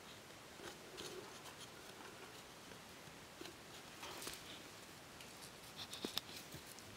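Faint handling sounds of split bamboo: light scraping and small taps as the pieces are worked and set, with one sharper click about six seconds in.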